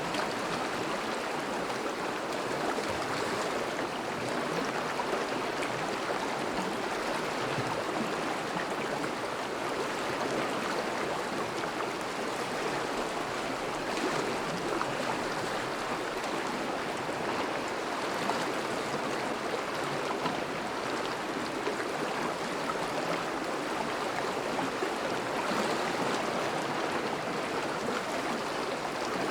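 A thawing river flowing steadily over and around melting ice: an even, continuous rush and babble of moving water.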